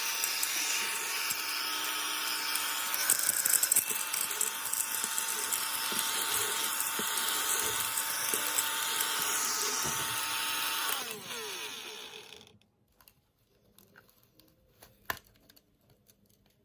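Mini desktop vacuum cleaner's small fan motor running with a steady whine. About eleven seconds in it is switched off, and its whine falls away as the fan spins down. A single click follows near the end.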